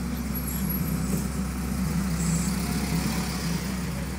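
A bus driving past close by on a wet road, engine and tyre noise swelling about two to three seconds in, over a steady low hum of idling vehicles.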